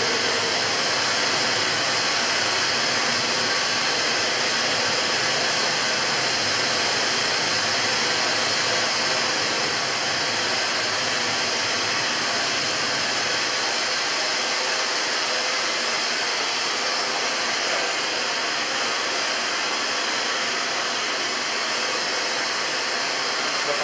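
Steady, unbroken noise drone, a hiss-like wash of sound with a faint held high tone, from the performance's live electronic soundscape.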